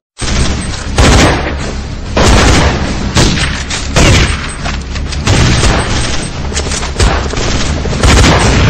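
Loud intro sound effects: a dense barrage of booms and blasts with a heavy hit about every second, mixed with music.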